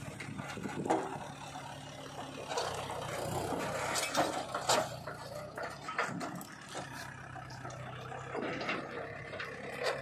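Mahindra tractor's diesel engine running steadily while its hydraulic tipping trolley dumps soil. The earth pours and rattles out in a rush that is loudest from about two and a half to five seconds in, with a few sharp knocks.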